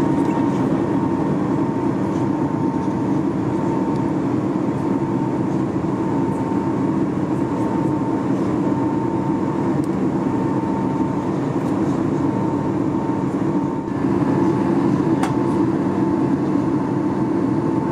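Steady cabin noise of a Boeing 737 MAX 8 in flight: engine and airflow drone with a faint steady tone above it, getting a little louder about fourteen seconds in.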